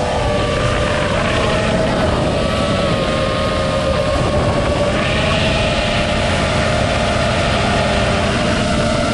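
iFlight Nazgul5 V2 FPV quadcopter's brushless motors whining in flight at a fairly steady pitch, over a rough, low rushing noise; a few higher tones join about five seconds in.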